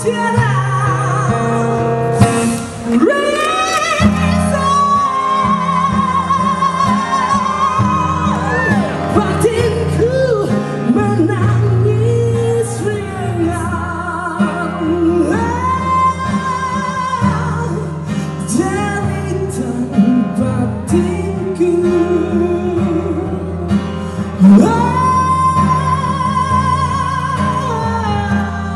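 Live band music with a singer holding long notes with vibrato over the band.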